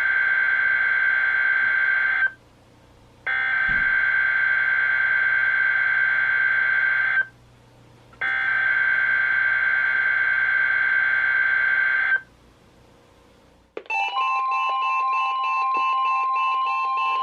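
NOAA Weather Radio SAME header: three screeching data bursts of about four seconds each, a second apart, the digital code that sets off the weekly test. About fourteen seconds in, the steady 1050 Hz warning alarm tone starts, and several weather radios' own alarms begin beeping in different pulsed patterns over it.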